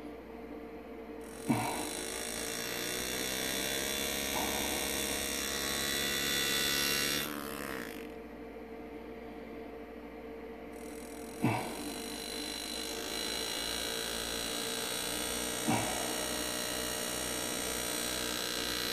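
Power engraving graver buzzing steadily as it cuts a design into a pewter chalice. Its buzz drops out twice, briefly at first and then for about three seconds, with a few sharp clicks.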